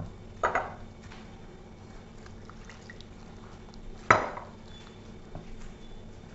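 Wire whisk stirring gram flour in a glass bowl as water is added for batter. There are two short, loud splashes of water into the bowl, about half a second in and about four seconds in.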